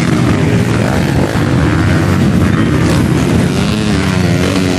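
Several motocross dirt bikes' engines revving hard, their pitch rising and falling as the bikes climb and ride past.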